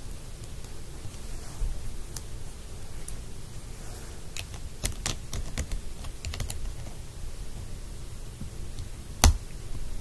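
Small plastic clicks and taps of Lego pieces being handled as a minifigure is pressed into a small Lego car. The clicks come irregularly, with a quick cluster midway and one sharper, louder snap near the end.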